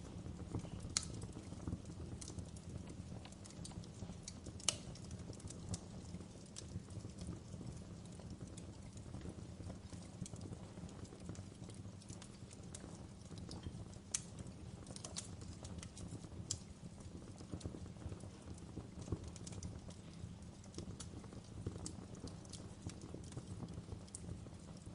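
Wood fire crackling in a fireplace: irregular sharp pops and snaps over a steady low rumble of the flames, with two louder pops in the first five seconds.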